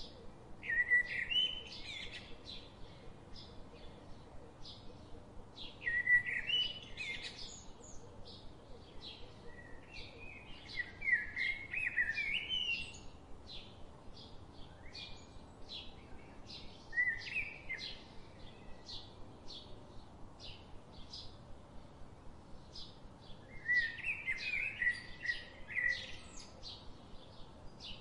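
Birds chirping and singing: short high chirps repeat rapidly throughout, with louder warbling song phrases breaking in every few seconds.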